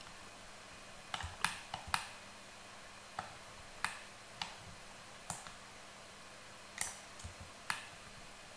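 Computer keyboard keys and mouse buttons clicking: about a dozen sharp, irregular clicks starting about a second in, over a faint steady hum.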